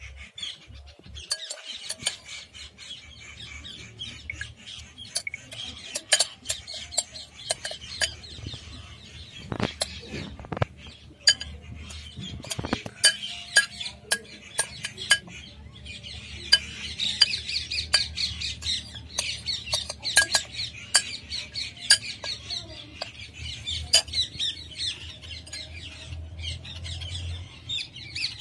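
Birds chirping and squawking in a dense, rapid chatter, with many short sharp clicks scattered through it.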